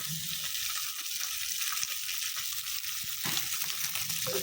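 Food sizzling steadily in hot oil in a pan.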